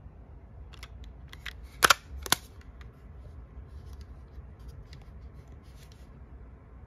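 A cassette is set into a Sony EX910 Walkman and its lid is shut, making a run of small plastic clicks with two sharp snaps about half a second apart, then light handling clicks.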